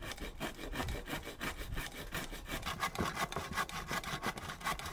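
Handsaw cutting through a wooden board in quick, even back-and-forth strokes, cutting out a notch.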